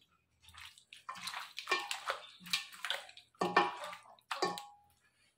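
Wet squelching and sloshing of a hand squeezing and turning chicken pieces in a liquid masala marinade in a stainless steel bowl, a string of strokes over about four seconds.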